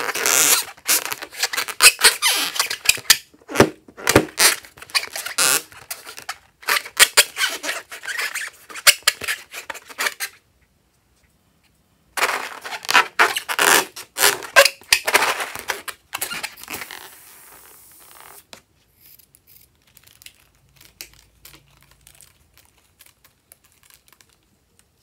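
Close-up crackling and squishing of fluffy slime and a rubber balloon being squeezed and worked by hand, in dense runs of clicks. It stops for about two seconds near the middle, starts again, then thins to faint, sparse clicks over the last several seconds.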